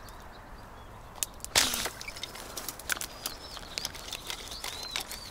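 Footsteps and rustling through overgrown vegetation, a scatter of small clicks, with one louder swish about a second and a half in. Small birds chirp faintly in the background with short, arching high calls.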